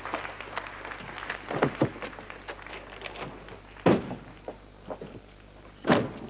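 Footsteps clicking on a hard street and a car door being handled, with two heavier thunks near the middle and near the end as the door of a vintage convertible is shut.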